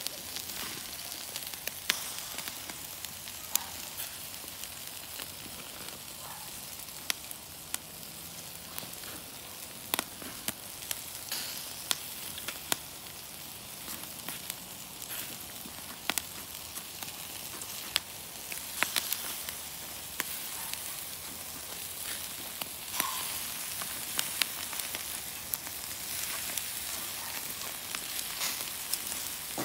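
Pork sizzling over hot charcoal on a grill: a steady hiss scattered with frequent sharp pops and crackles as the fat spits.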